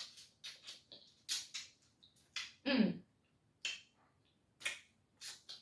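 Close-up eating sounds from someone eating blue crab: a dozen or so short, sharp wet clicks and smacks from the mouth and the crab shell, with a brief hum of pleasure about two and a half seconds in.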